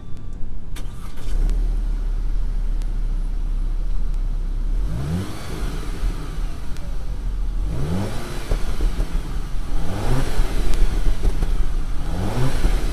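Audi A4 B8's turbocharged four-cylinder engine accelerating, revving up through the gears: four rising pulls, each dropping back at a shift, over a steady low engine drone.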